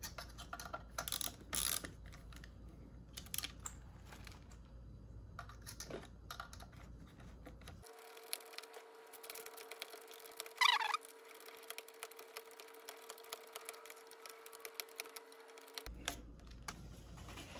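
Light, irregular clicks and metallic taps from a wrench and screwdriver working the nut of a suspension support bolt as it is tightened. A short high squeak comes about eleven seconds in.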